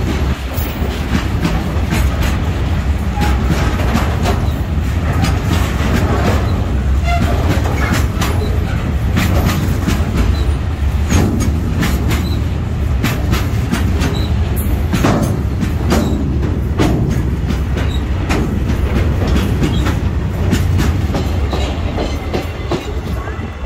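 Indian Railways freight train wagons rolling past close by at speed: a loud steady rumble with a stream of sharp clicks and clacks from the wheels over the rail joints.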